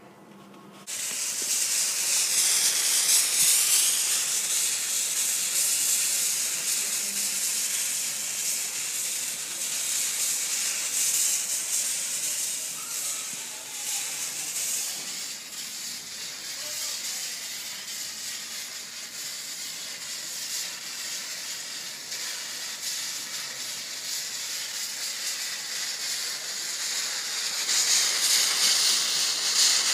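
2.5 mm visco fuse burning with a steady hiss that starts about a second in, eases off through the middle and grows louder again near the end.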